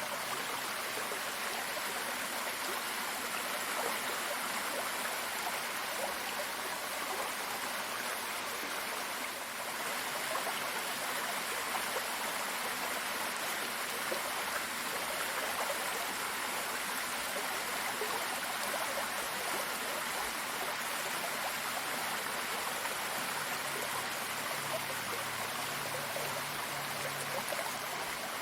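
Running water in a stream or small cascade flowing steadily, an even rushing and splashing with no breaks.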